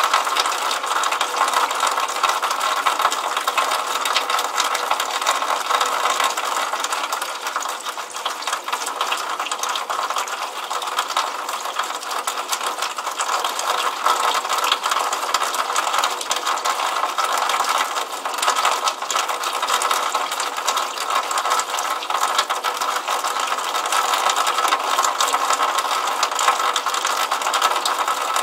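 Water running from a drainpipe outlet and splashing into a puddle: a steady, continuous patter of drips and splashes with a rapid fine crackle.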